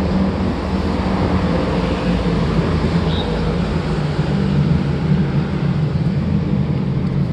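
Steady rumble of road traffic on an elevated highway, with a low drone.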